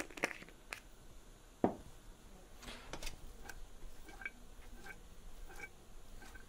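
Wooden spoon knocking and scraping against a stainless steel pot as pasta is tossed: a sharp knock about a second and a half in, then a run of light, quick clicks.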